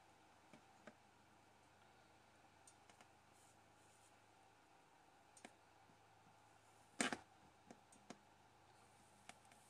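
Quiet handling of a stained-glass lampshade as reinforcing wire is worked around its metal vase-cap ring: a few light clicks and ticks, with one louder clack about seven seconds in.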